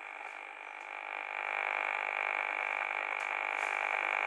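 Steady electronic buzz with a high tone from the loudspeaker of a Gigahertz Solutions HFW radio-frequency meter: the audio rendering of the microwave signal it is picking up from a nearby 5G mobile antenna. It grows louder about a second in.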